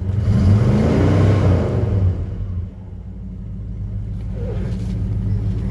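1966 Ford Thunderbird's V8 engine revved once, rising in pitch for about a second and falling back to a steady idle. The car has just been started after sitting four or five days, and it sounds healthy.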